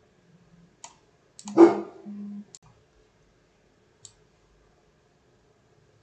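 Computer mouse clicking: a few sharp, separate clicks spread over the first four seconds. A single louder short noise stands out about a second and a half in.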